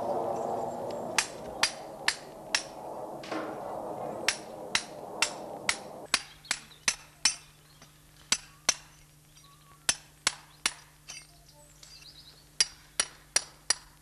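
Hammer blows on old brickwork, breaking open a bricked-up tunnel entrance: sharp knocks in runs of three or four, about two a second, with short pauses between runs. A rushing noise underlies the first few seconds and fades about six seconds in.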